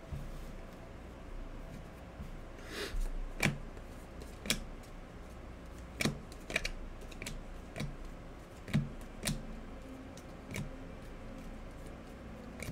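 Trading cards being handled and flipped through: light, irregular clicks and taps, roughly one a second.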